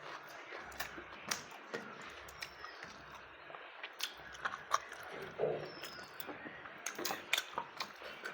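A person chewing food close to the microphone, with many irregular, sharp, crisp crunches.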